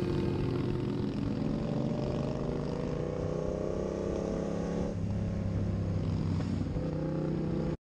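Motorcycle engine running under way, its pitch rising slowly, then stepping down about five seconds in. The sound cuts off suddenly near the end.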